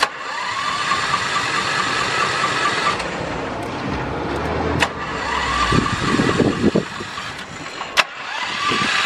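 A Canta microcar's starter motor cranking its engine with a steady whine, after a sharp click as the key is turned and a few more clicks along the way. The engine has stood unused for a long time and is slow to start.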